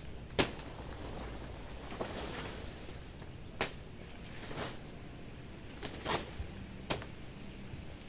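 Sharp, brief cracks and snaps from a banana plant being cut and broken apart, about half a dozen at uneven intervals, the loudest about half a second in.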